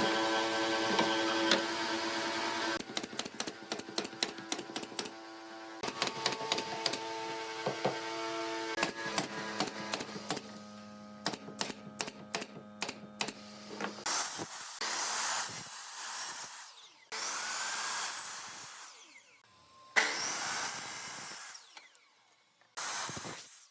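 Woodworking power tools at work in a series of short cuts: a motor running with a steady whine, then a run of sharp knocks and clicks, then several bursts of noisy hiss that stop abruptly.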